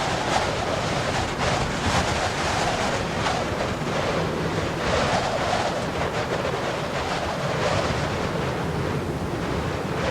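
Strong wind blowing in gusts, rushing steadily and buffeting the microphone.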